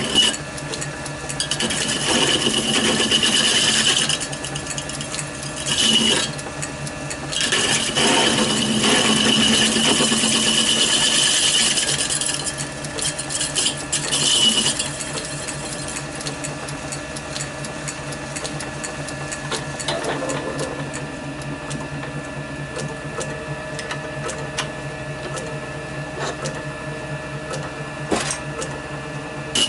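Small metal lathe running with a steady motor and belt hum while a boring bar cuts the centre hole in a thin steel sheet-metal plate held in a four-jaw chuck. The cut comes in several passes of a few seconds each in the first half, with a high ringing squeal from the thin plate, then the lathe runs on more quietly.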